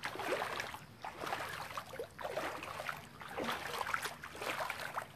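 Footsteps wading through shallow floodwater, a slosh and splash with each step, coming irregularly about once or twice a second.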